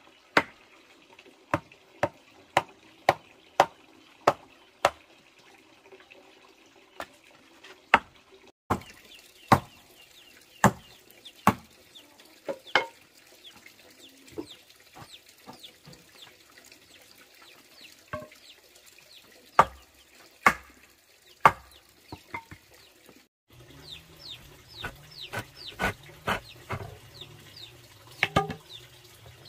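Hammering on wooden planks: sharp blows about two a second at first, then slower, uneven strikes.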